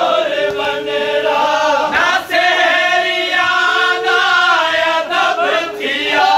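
Men's voices chanting a noha, a Shia mourning lament. A lead reciter sings long held notes and a group of men chant with him.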